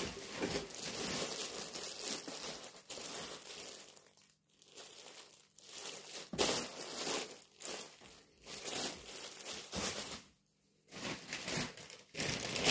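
Plastic mailing bag crinkling and rustling as it is handled and pulled open, in noisy bursts with brief pauses about four seconds in and near the end.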